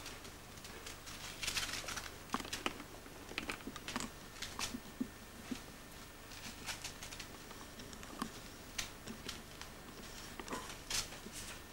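Kitten playing with torn scraps of paper on a wooden floor: irregular light rustles and crinkles of the paper, with small taps of paws and claws on the boards.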